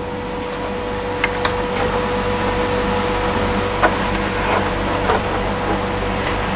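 A few light taps and knocks of 3D-printed plastic fuselage parts being fitted together by hand, over a steady machine hum with a thin high whine.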